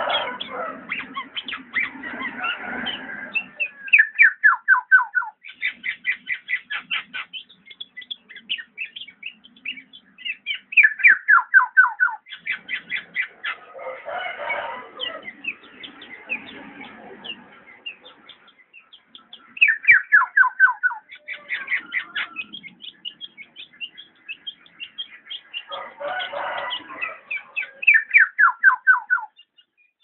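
Black-naped oriole calling: quick runs of short falling notes, repeated every few seconds, mixed with harsher, noisier calls.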